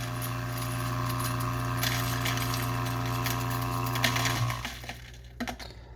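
Ceado E6P espresso grinder's motor running a timed single dose, a steady hum grinding coffee, stopping about four and a half seconds in. A couple of light knocks follow near the end.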